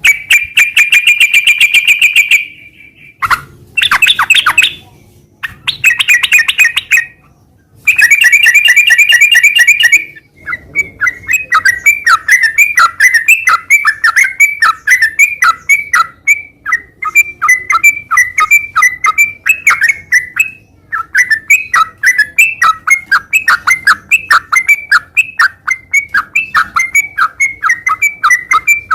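Sooty-headed bulbul (trucukan) singing loudly: several short, rapid trills with brief pauses between them, then from about ten seconds in a long, unbroken run of quick repeated notes.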